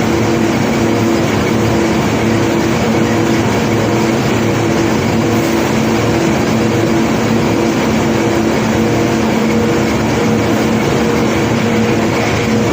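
Heavy unloading machinery running steadily: a constant engine drone with a few steady humming tones over it.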